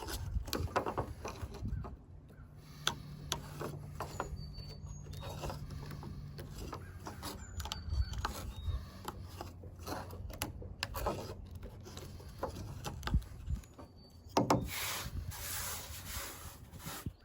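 Swiss Army knife scraping and twisting into a dry wooden fireboard to carve a starter divot for a bow drill, with repeated short scraping strokes.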